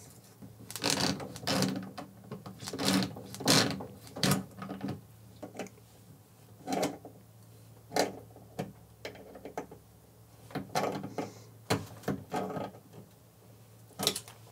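Pliers gripping and turning a brass water hammer arrestor to tighten it onto a washing-machine shutoff valve: irregular metal clicks, knocks and short scrapes, about a dozen in all, with gaps between them.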